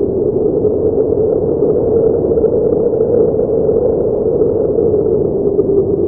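Muffled blizzard wind, a dense steady rushing drone with no breaks and nothing in the high range.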